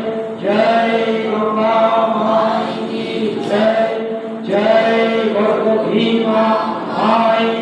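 A monk chanting a devotional hymn into a microphone, with a group of voices singing along, in phrases of a second or two with short breaks between.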